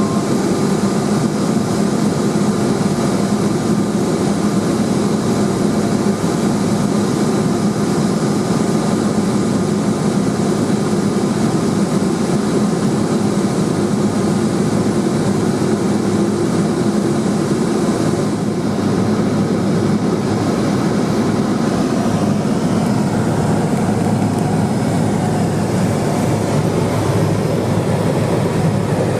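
Single-engine turboprop of a Cessna 210 Silver Eagle, engine and propeller running steadily in flight as a constant drone, with a slight change in tone about two-thirds of the way through.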